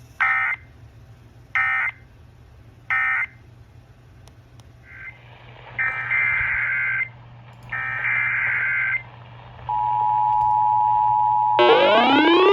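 Emergency Alert System tones: three short, screechy digital data bursts (the end-of-message code), then two longer data bursts of the next alert's header, then the steady two-tone attention signal starting near the end. A rising, siren-like sweeping tone comes in over the attention signal in the last second.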